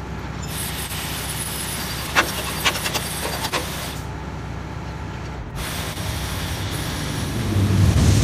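Truck-mounted crane's diesel engine running steadily, with a few sharp metal clanks about two to three and a half seconds in; the engine grows louder near the end.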